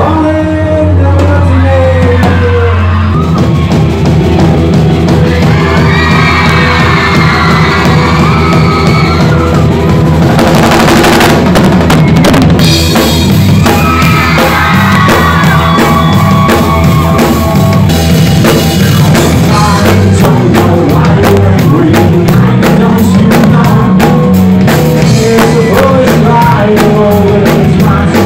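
Live rock band playing loudly, with drum kit and bass guitar, as heard from the floor of the concert hall.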